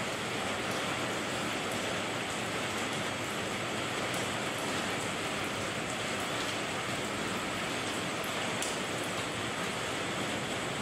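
Rain falling steadily: an even hiss with faint scattered ticks of drops.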